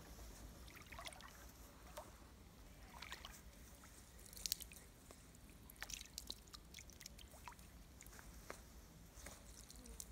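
Faint small splashes and drips of water as feet shift about in an ankle-deep creek, irregular and scattered, with the most distinct one a little under halfway through.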